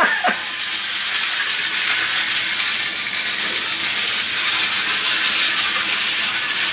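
Vintage Hornby Dublo three-rail model locomotive running around a loop of track, a steady hissing whirr of its motor and wheels on the rails.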